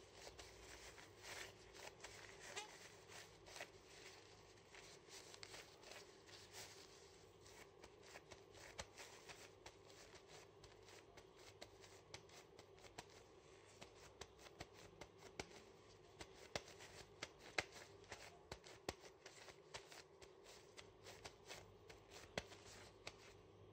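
Faint crinkling and crackling of a plastic bag worn over the hand as it presses and works raw minced beef mixture in a glass bowl: many small irregular clicks over a faint steady hum.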